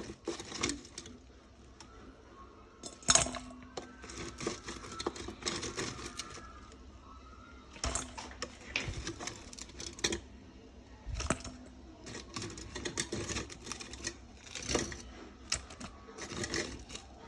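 Irregular clicking and clattering, as of kitchen utensils and dishes being handled.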